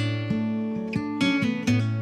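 Background instrumental music: an acoustic guitar plucking a run of notes over a bass line.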